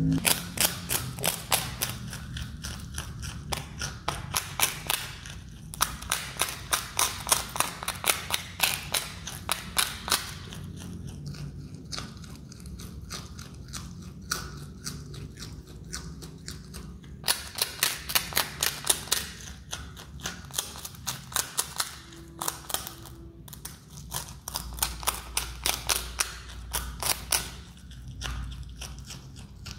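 Himalayan marmot chewing a piece of cake close to the microphone: crisp, quick chewing clicks, about two to three a second, in bouts of a few seconds with short pauses between.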